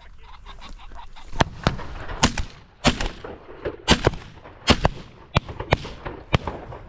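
Ring-necked pheasant giving a harsh, irregular series of short cackling calls, about a dozen sharp notes.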